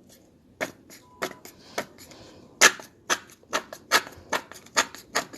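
Plastic glue bottle being squeezed out, air and glue sputtering from its nozzle in a series of irregular sharp pops as the bottle empties.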